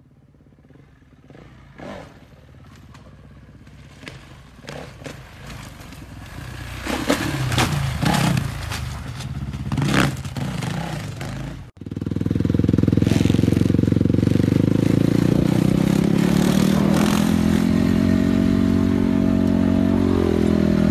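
Dirt bike engine revving, growing louder, with sharp knocks and scrapes of the bike striking rock about seven to ten seconds in. After a cut, a dirt bike engine runs loud and steady close by.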